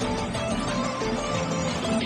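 Background music with a melody of held notes.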